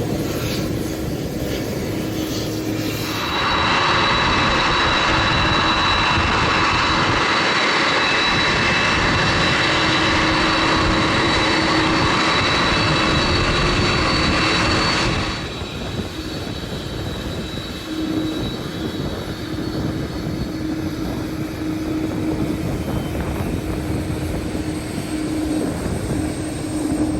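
Boeing 747-400F jet engines running with a steady hum. From about three seconds in to about fifteen seconds in, a louder rushing whine with high steady tones lies over it, starting and stopping abruptly.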